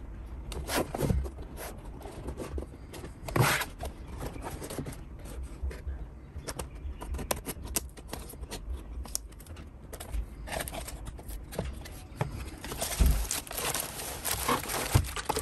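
Cardboard box being handled and opened by hand: a run of short scrapes, taps and flap sounds. From about 13 seconds in, a plastic-bagged tripod slides out of the box with a denser rustling.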